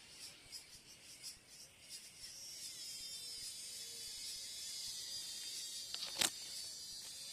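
Cicada singing: a high-pitched call that starts as short pulses about three a second, then merges into a steady continuous buzz. A single sharp click about six seconds in.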